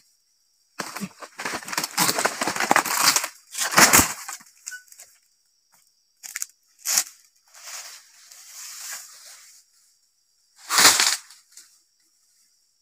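Oil palm fronds being cut with a dodos (pole chisel): a long rustling crash as cut material breaks and slides down through the crown, ending in a heavy thud about four seconds in. A softer rustle follows, and another heavy thud near the end.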